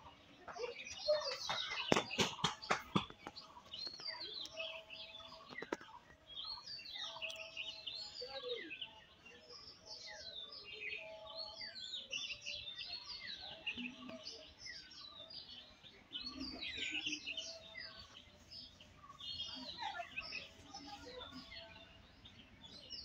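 Small birds chirping and singing without a break, many short quick notes overlapping. About two seconds in comes a quick run of sharp clicks.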